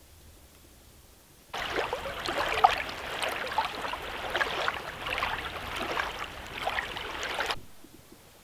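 Small waves lapping and splashing onto a sandy lake shore. The sound starts abruptly about a second and a half in and cuts off abruptly near the end.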